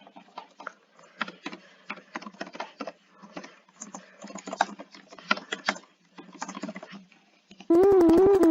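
An irregular run of quick, light clicks and taps. Near the end, a loud electronic alert tone cuts in: one steady pitch that wobbles up and down about three times a second, like an emergency alert warble.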